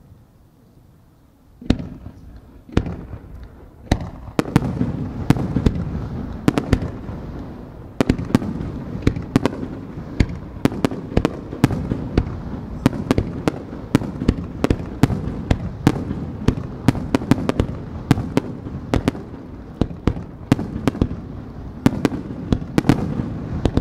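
Aerial firework shells launching and bursting: after a quiet start, sharp bangs begin about two seconds in and build into a rapid barrage of several reports a second over a steady rumble.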